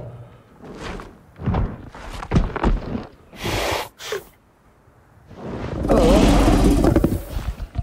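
Computer-generated dinosaur sound effects played by an Apple Vision Pro: a few heavy thudding footsteps and a hissing whoosh, then a loud growl starting about six seconds in. The recording is a little distorted.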